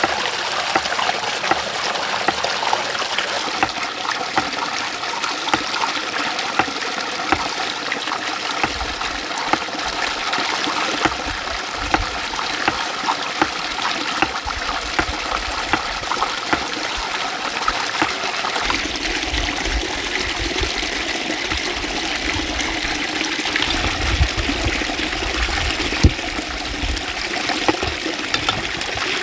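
Water trickling and splashing steadily, with many small clicks throughout and a low rumble that comes and goes.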